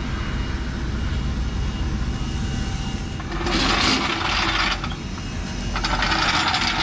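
Casters of a wheeled car stand rolling and scraping over concrete in two bursts, about three and a half and six seconds in, over a steady low mechanical hum.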